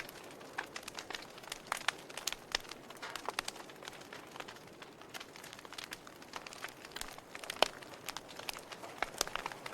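Wood fire burning in a fireplace, crackling with irregular pops and snaps over a soft hiss, and one louder pop about three-quarters of the way through.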